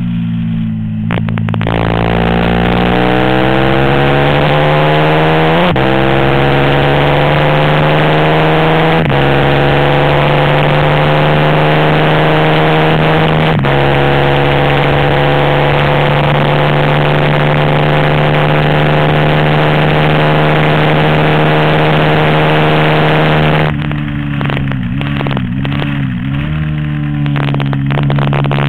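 A 450 cc race motorcycle engine at full throttle: it climbs in pitch and upshifts three times in the first third, holds steady high revs for about ten seconds, then near the end drops in loudness with wavering revs as it brakes and downshifts for a corner before picking up again.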